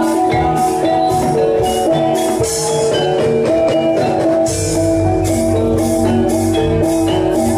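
Gamelan accompaniment for a jathilan trance dance: held metallophone notes over even metallic percussion strokes about twice a second, with a low drum joining in about four and a half seconds in.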